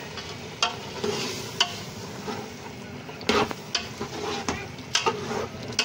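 Steel spoon stirring soaked white urad dal into mutton and ghee in a pressure cooker pot, with irregular clinks and scrapes of metal on metal. Under the clinks runs a steady frying sizzle.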